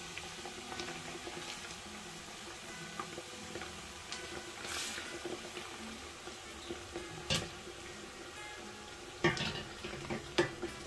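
Blended pepper being poured into a large pot of hot oil and frying onions, with a steady sizzle underneath. A few sharp knocks of utensil or container on the pot come in the second half.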